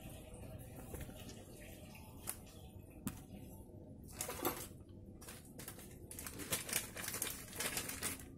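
Small metal engine parts being picked up and handled on a workbench: a few light clicks, with rustling stretches in the second half.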